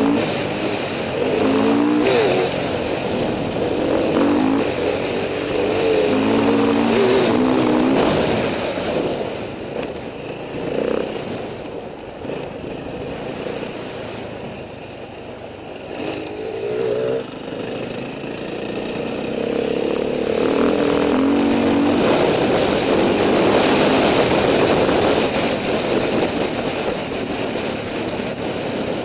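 Enduro dirt bike engine running on a dirt track, its pitch rising and falling with throttle and gear changes. It drops to a quieter run in the middle, then picks up again toward the end.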